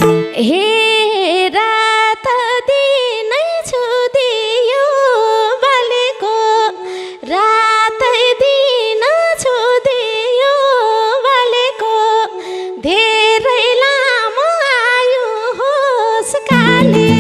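A woman singing a Nepali dohori folk-song verse into a microphone over a steady held instrumental note. The drums and low accompaniment are silent, coming back in near the end.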